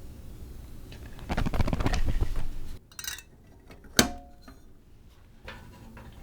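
Cookware and utensils being handled for cooking: a spell of rustling and clattering, then a single sharp clink with a short ring about four seconds in.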